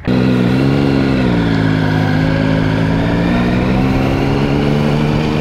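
Triumph Sprint ST 1050's inline three-cylinder engine running as the motorcycle rides along a street at low speed. The engine note dips slightly about a second in, then holds steady.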